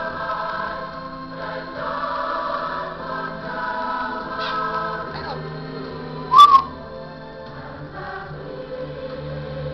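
Music playing with singing; about six seconds in, an African grey parrot gives one short, loud whistle over it.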